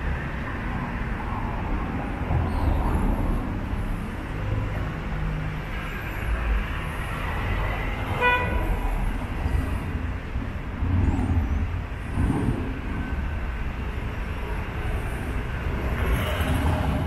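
City street traffic rumbling as vehicles pass, with one short vehicle horn toot about halfway through.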